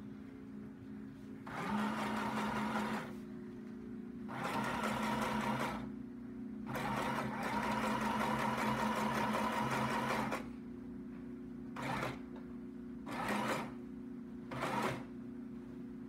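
Janome electric sewing machine stitching in spurts: three runs of one to three and a half seconds, then three short bursts near the end.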